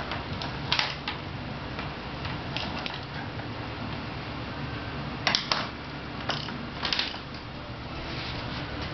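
Plastic ballpoint pen clicking and clattering on a hardwood floor as a kitten bats it, in short scattered bursts: a couple about a second in and a busier run in the second half.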